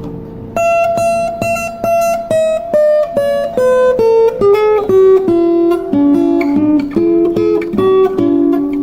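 Instrumental intro on acoustic guitar: a melody of single plucked notes, about two to three a second, that steps downward in pitch and then moves around a lower range over a sustained bass note. The run starts about half a second in, after a chord dies away.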